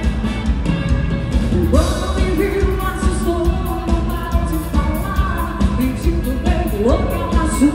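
Live dance band playing: a woman singing lead over electric guitar, drums and keyboard, with a steady dance beat.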